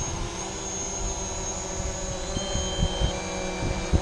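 Quadcopter drone hovering close by, its motors giving a steady whine of several tones, with wind gusting in low thumps on the microphone. About two and a half seconds in, a falling two-tone beep sounds from the controller as the drone's battery runs low.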